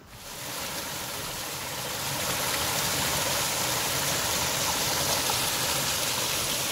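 Small creek waterfall: water pouring and splashing over rock ledges in a steady rush, swelling up over the first second or two.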